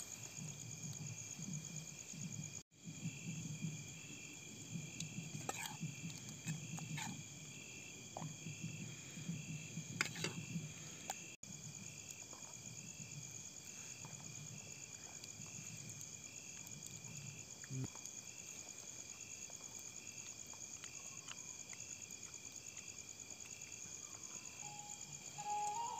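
Night insects, crickets, chirping steadily at several high pitches in overlapping pulsing trills, with a few faint clicks and a low murmur under the first half.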